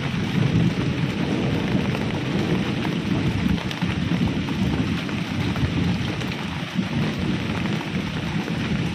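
Heavy rain falling steadily, with a continuous low rumble of thunder under it.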